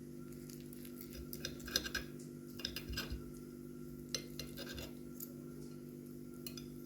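Metal cutlery clinking and scraping against a plate in a scattered series of short clicks, over a steady low hum.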